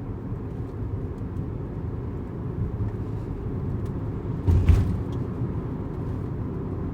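Steady road and engine rumble inside a moving car's cabin, with one short thump about four and a half seconds in.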